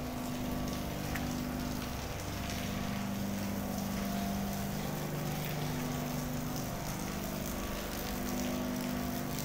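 Steady low machinery drone with several humming tones that change pitch every few seconds.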